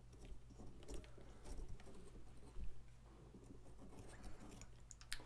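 Faint, scattered scrapes and small clicks of a knife carving into a pumpkin, over a low steady hum.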